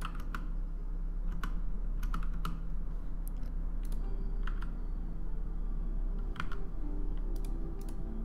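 Computer keyboard and mouse clicks: about a dozen short, sharp taps in uneven clusters over a low steady hum.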